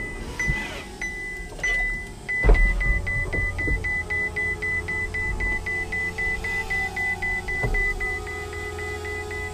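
A Ferrari 488 Spider's electronic warning beeper pipping rapidly at one pitch, about four beeps a second, over the low, steady idle of the car's twin-turbo V8. A single thump comes about two and a half seconds in.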